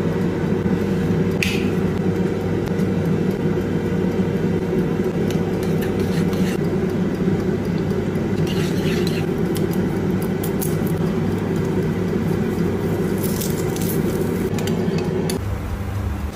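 Air fryer fan running with a steady whir, with a few light clinks of a metal spoon against a ceramic bowl as yogurt is spooned and stirred. The hum drops and changes shortly before the end.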